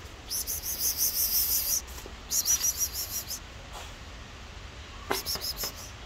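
An insect trilling in three high-pitched bursts of rapid pulses, each about a second to a second and a half long.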